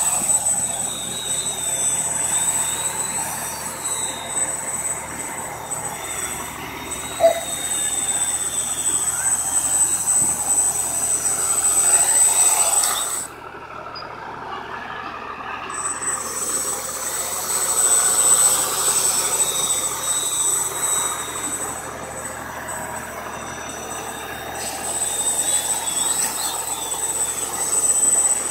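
Turnigy Talon quadcopter's four 1650KV brushless motors spinning 8x4.5 propellers in a low hover, a steady buzz with a high whine. About thirteen seconds in the sound drops away as the quad sets down, and a couple of seconds later it spins back up for another hover. There is a single brief knock about seven seconds in.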